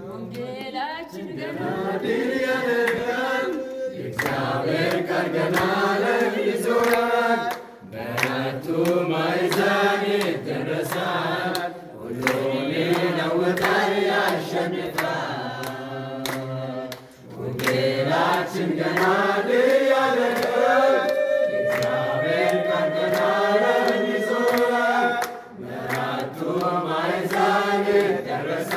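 Church congregation singing a hymn together, in phrases of a few seconds with short breaks between them.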